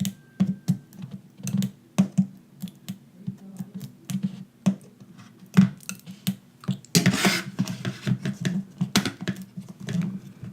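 Irregular quick clicks and taps of tools and fingers working on an opened iPhone 6 as its battery adhesive strips are pulled, with a short scraping rustle about seven seconds in.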